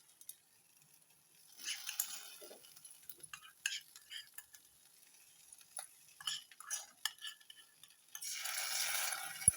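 A spoon stirring and scraping through fried jackfruit pieces in a karai, with clinks of the spoon against the pan and sizzling. The sizzling comes in short spells, loudest for about a second and a half near the end.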